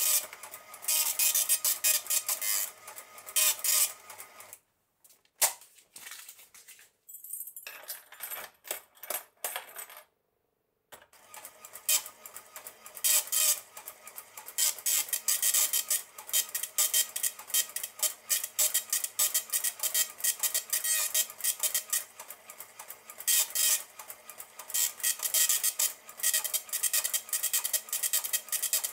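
Dot matrix printer of an Elka 803-02 cash register printing a report: fast buzzing chatter of the print head in line-by-line bursts with paper feed. About five seconds in the printing breaks off for a few seconds, with a short metallic jingle of the key bunch in the register's mode switch, then the printing resumes and runs on.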